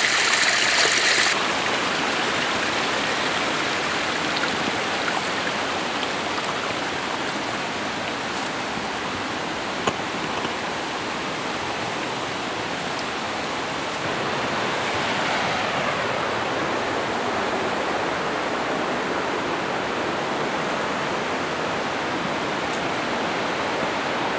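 A small waterfall splashing into a pool, loud and hissing, cut after about a second to the steady rush of a creek, with one short click near the middle.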